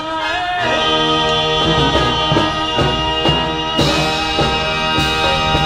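Brass band with drums playing a slow, sustained piece: held brass chords over a steady drum beat about twice a second.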